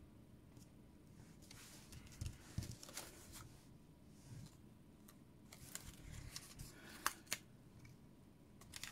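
Faint rustling and small ticks of paper cardstock being handled, a scalloped label picked up and pressed against a sheet of foam adhesive dots, with two sharper clicks about seven seconds in.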